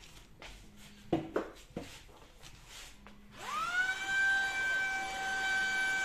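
A few knocks, then about three and a half seconds in a Tineco A10 cordless stick vacuum with its small furniture brush head switches on: its motor whine rises in pitch and settles into a steady high-pitched run.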